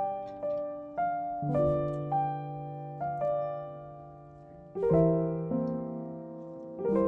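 Background piano music: a slow, gentle melody of single notes and chords, each struck and left to ring out and fade.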